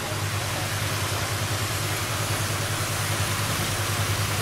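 Strong current rushing and churning through a canal sluice gate, a loud steady rush of water, over the low, steady, finely pulsing hum of an engine.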